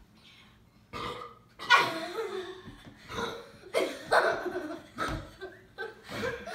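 Several burps from people who have chugged Coke, one after another, with laughter among them; they begin about a second in after a quiet moment.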